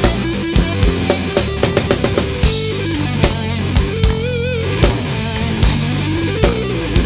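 Music with a heavy, deep bass line and a steady drum beat of about two hits a second, with guitar; about four seconds in, a lead note bends and wavers.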